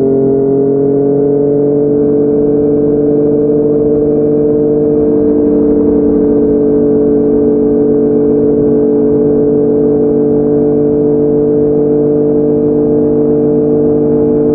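Yamaha MT-09's inline-three engine through a Yoshimura R55 slip-on exhaust, heard riding: the note climbs slightly in pitch over the first couple of seconds, then holds steady at cruising revs.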